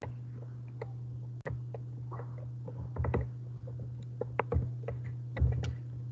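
Steady low hum from an open microphone, with scattered small clicks and taps and a few louder knocks about halfway through and again near the end.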